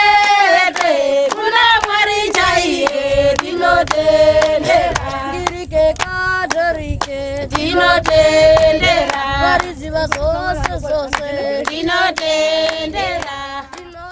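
A group of voices singing together, accompanied by steady hand-clapping at about two claps a second. The singing and clapping fade out near the end.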